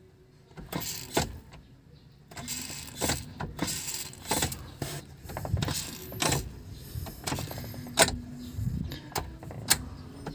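Irregular metallic clinks and knocks of hand tools working on the brake master cylinder's fittings, with small rattles and handling noise in between.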